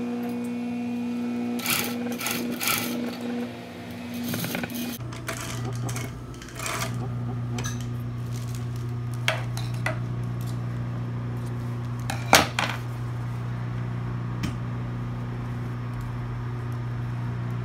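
Sewing machine stitching for about the first five seconds, then stopping while its motor keeps humming steadily. Clicks and knocks from handling the machine and fabric; the sharpest knock comes about twelve seconds in.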